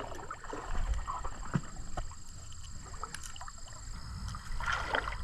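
Low rumble of wind on the microphone, with scattered small knocks and rustles of handling.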